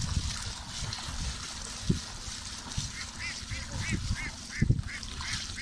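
Water splashing and sloshing as a woven bamboo basket is dipped and worked in the river beside a boat, with a few low knocks. From about three seconds in, a bird calls in a quick run of short repeated notes, about three a second.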